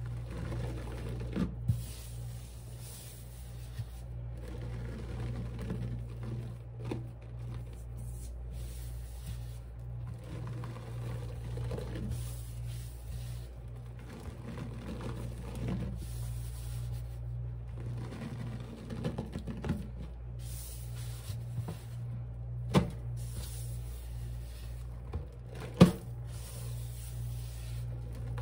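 Sponges loaded with cleaning powder being squeezed and pressed over and over, giving soft crunchy puffs every couple of seconds. A few sharp slaps or taps come near the start and in the last few seconds, the loudest about three seconds before the end. A steady low hum runs underneath.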